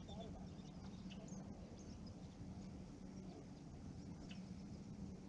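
Faint outdoor ambience: scattered short bird chirps over a steady low hum.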